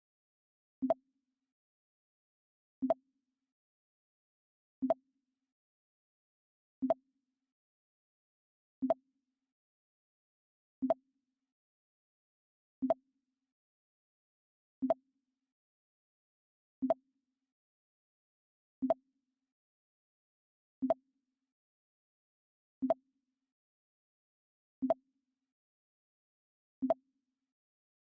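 Mac OS X 'Pong' sound effect: a short, sharp blip with a brief low tone after it, repeated evenly about every two seconds with silence in between.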